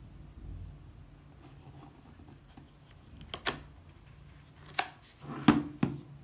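Handling noises from a plastic electric multi cooker being touched and turned by hand: single sharp clicks about three and a half and five seconds in, then a few quick knocks near the end.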